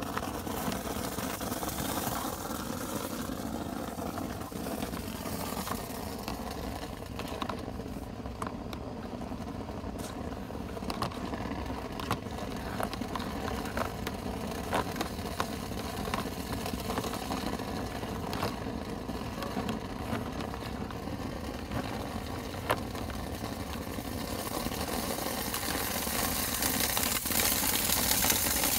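Vent-cleaning equipment's motor running steadily, with scattered knocks and rattles, getting louder near the end.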